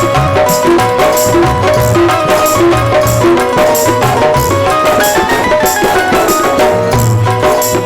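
Instrumental passage of a Rajasthani folk bhajan: a melody instrument plays a line that climbs and falls over a steady beat of hand drum and bright jingling percussion, with no singing.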